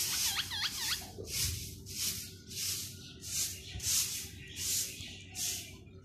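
Short hissing bursts repeating about one and a half times a second as the caged birds squabble, with a quick run of chirps in the first second.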